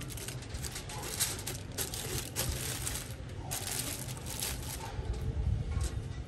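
Aluminium foil crinkling and rustling in irregular crackles as hands fold it over a fish on a bed of coarse salt and press it down, over a low steady rumble.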